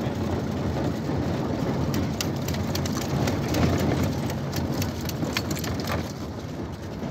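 Machete blade knocking and scraping against a plastic bottle of frozen ice and the ice and cans in a bucket: a scattered run of sharp clicks and clinks over a crackly noise, with a low steady hum underneath.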